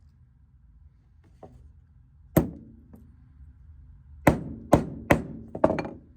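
Hammer blows on metal with a short ring after each: one strike, then five more in quick succession near the end, as a piece of sheet metal is shaped round over a socket.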